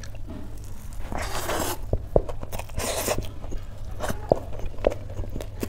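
Close-up chewing of a mouthful of rice and mashed potato eaten by hand, with sharp wet mouth clicks and a few short noisy bursts, over a steady low hum.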